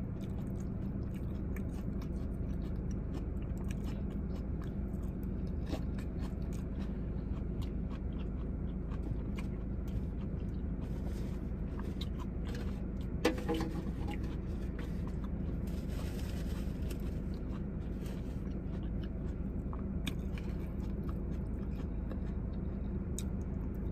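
Close-up chewing and biting of a burrito bowl of lettuce, rice and chicken, with small clicks and scrapes of a fork in a molded-fiber bowl, over a steady low hum.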